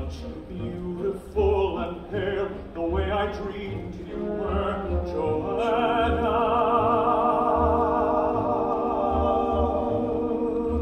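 Live stage-musical singing with orchestra: a voice sings a wavering melody over a low pulse about once a second, then from about halfway holds one long note with vibrato over a sustained chord.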